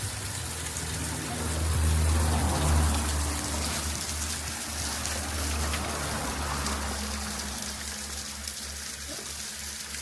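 Shallow river water rushing and trickling, a steady hiss with small splashes, under a low rumble that swells about two seconds in.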